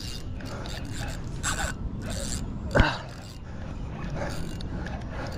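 Spinning reel being cranked in short, irregular spurts while playing a hooked carp, its mechanism rattling and scraping. A single sharp knock comes about halfway through.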